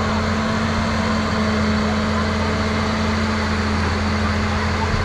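Wheel loader's diesel engine running steadily with an even, low drone while the machine works the road bed.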